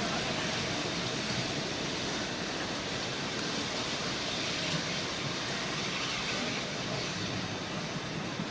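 Railtour train running along the track, a steady rolling noise without a clear beat that slowly eases as it moves away.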